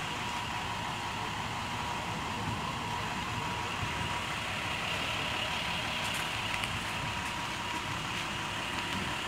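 A vehicle engine idling steadily under a constant hiss, with a faint steady tone running through it.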